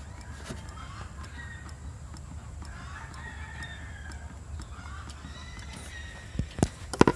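Chickens clucking in the background, with several sharp knocks near the end.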